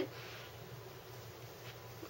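Quiet room tone: a faint low hum and soft hiss, with no clear event.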